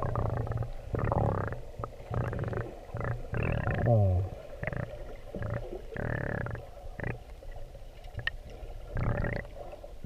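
Muffled underwater water noise from a submerged camera in the sea: irregular sloshing and bubbling gurgles, with a short falling gurgle about four seconds in.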